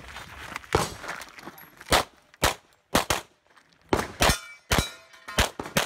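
Pistol shots fired in quick strings during a practical shooting stage: about ten sharp reports at uneven spacing, some followed by a metallic ring from hits on steel targets.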